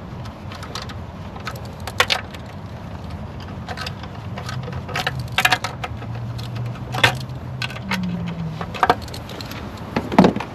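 Scattered light metallic clicks and clinks, about half a dozen, over a steady low hum: intake plenum bolts and brackets being handled and started by hand.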